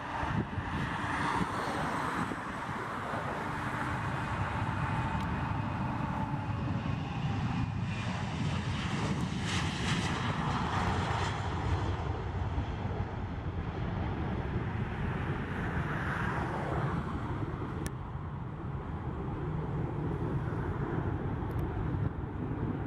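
Southwest Airlines Boeing 737 taking off and climbing out, its jet engines at takeoff thrust: a steady jet noise, with a whine that falls in pitch over the first few seconds.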